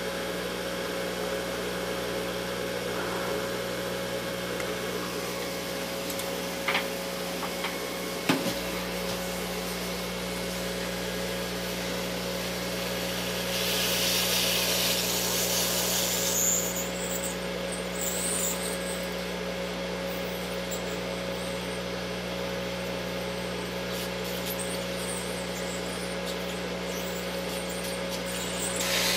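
AOYUE 852A hot-air rework station running while it reflows solder paste: a steady motor hum under the hiss of air from the hot-air gun. The hiss grows louder for about three seconds around the middle, and there are two small clicks about a quarter of the way in.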